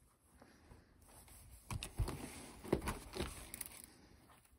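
A few soft thumps and scuffs with light rustling, most of them between about two and three seconds in: a dog climbing down off a cardboard guitar box.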